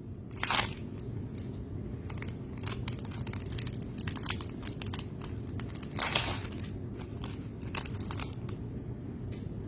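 Trading card pack wrappers crinkling and basketball cards being handled. There are two louder rustles, one about half a second in and one about six seconds in, with small clicks and rustles between them.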